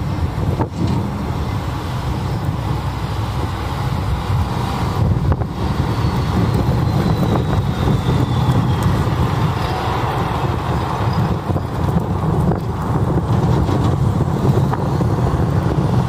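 Heavy snowplow dump trucks with front plow blades driving past with their engines running: a steady low rumble. A faint falling whine sits over it between about a third and halfway through.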